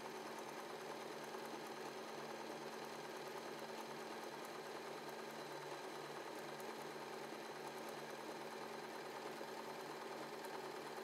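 W6 N1800 mechanical sewing machine running steadily at sewing speed, stitching a zigzag rolled hem in thin fabric. It runs smoothly and very quietly, a low even hum with no pauses.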